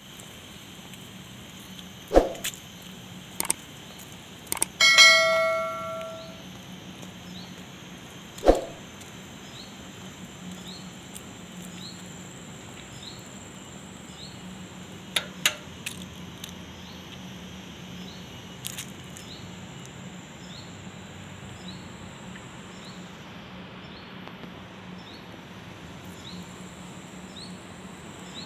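Street ambience at a road junction: a steady hum of traffic with a faint high chirp repeating about once a second. A couple of sharp knocks are heard, and about five seconds in comes a single bell-like metallic ring that dies away over a second, the loudest sound.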